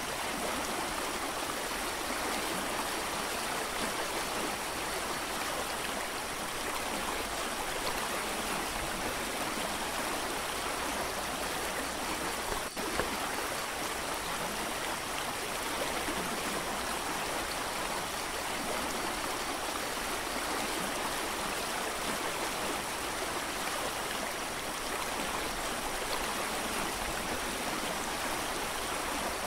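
Steady rushing of a mountain creek: an even, unbroken water noise.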